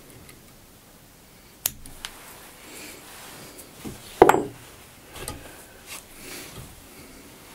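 Fly-tying tools being handled at the bench: two small sharp clicks, then a louder knock with a brief ring about four seconds in as a tool is set down, followed by a few softer knocks.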